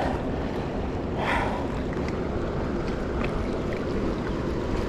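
Wind rumbling on the microphone over river water, with a short rustle of handling about a second in and a few light clicks.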